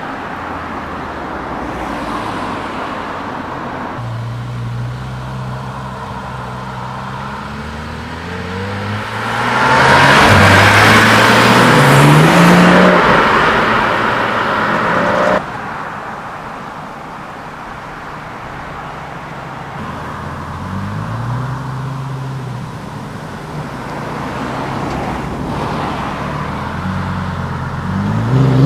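Supercar engines pulling away at low revs, then one car accelerating hard about ten seconds in, its revs rising with loud exhaust noise before the sound cuts off abruptly a few seconds later. Further, quieter revving follows near the end.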